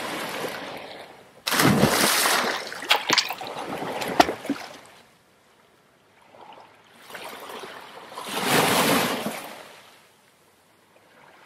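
Water splash and rushing-water sound effects: a loud splash starts suddenly about a second and a half in, with sharp drip-like clicks over the next few seconds, then after a brief lull a second swell of rushing water rises and fades near the end.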